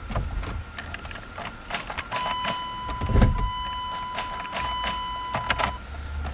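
Ignition key and key ring clicking and jangling in a Dodge pickup's steering column as the key is turned, while a steady high warning tone from the dash sounds from about two seconds in until near the end; the engine does not crank. A low thump comes about three seconds in.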